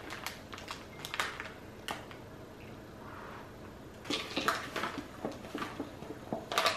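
Kitchen utensils and dishes clinking and tapping, with scattered single clicks, a quick run of clatter about four seconds in and a sharp click near the end.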